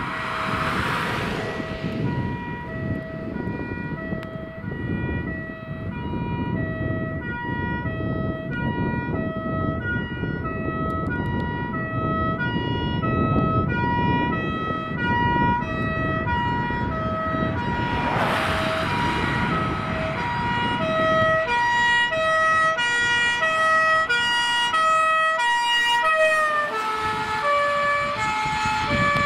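German two-tone fire engine siren (Martinshorn) on an Iveco fire truck, alternating evenly between a high and a low note, each held under a second, over engine and tyre noise. About 26 seconds in both notes drop in pitch as the truck passes and drives away. A brief rush of noise sounds near the start and again around 18 seconds in.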